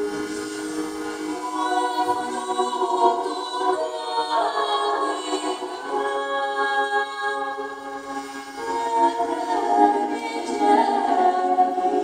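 Organistrum, the medieval hurdy-gurdy played by two people, sounding a steady bowed-string drone under a slow melody, with voices singing over it.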